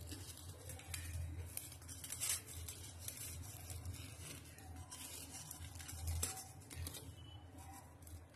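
Knife sawing through deep-fried burger buns: faint crisp rasps and tearing of the crust, with a few sharper scrapes, over a low steady hum.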